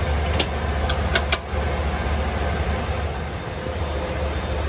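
Steady low machinery hum, with four sharp metallic clicks in the first second and a half from a wrench working the belt-tension adjustment nut on an air handler's motor mount.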